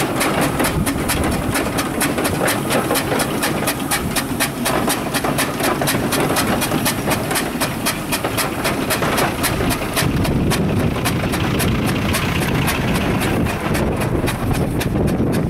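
Steam road engine working close by, its exhaust giving a fast, even beat of about five chuffs a second over a steady mechanical rumble; the beat fades near the end.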